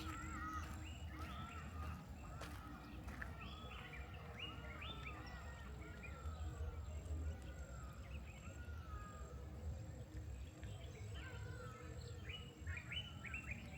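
Forest birds calling: a run of short, arching chirps repeated over and over, with a quicker flurry of calls near the end.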